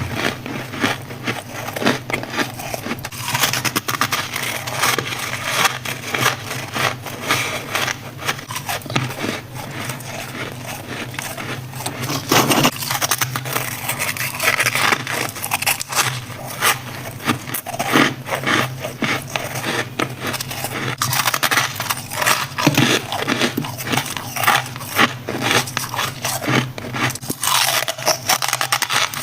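Freezer frost and ice being bitten, scraped and crunched close up: a dense run of crisp crackles and crunches, over a steady low hum.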